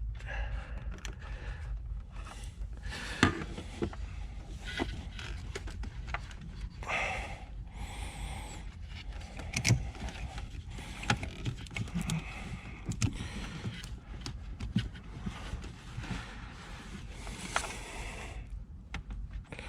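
Needle-nose pliers and hands working a clamped rubber PCV hose loose from its fitting: irregular clicks, taps and scraping with rustling in between.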